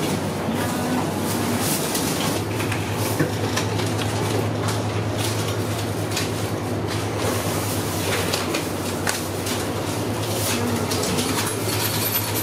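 Shop interior ambience: a steady low hum under scattered clicks, rustling and clatter.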